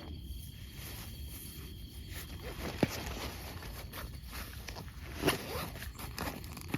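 Handling noises: scattered rustles and light clicks, with a sharp click about three seconds in and a short zip-like rasp a little after five seconds.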